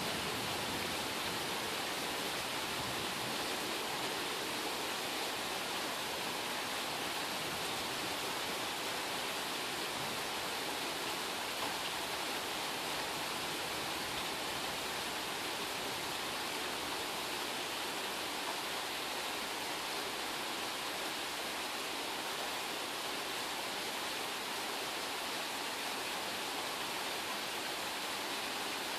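Steady rain shower falling at night, an even hiss that holds level throughout.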